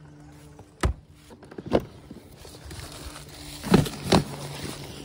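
Camping gear being handled in a motorcycle's hard luggage: a few sharp knocks, two of them close together near the end, over the rustle of a fabric stuff sack being pulled out of the saddlebag.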